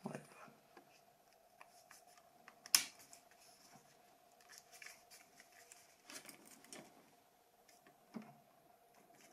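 Small clicks and handling noises from working on a mobile phone and its parts, with one sharp click about three seconds in, over a faint steady hum.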